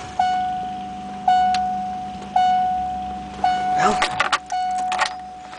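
A car's warning chime dinging about once a second, each ding a steady tone that fades until the next. A burst of clicks and crackle comes near the end.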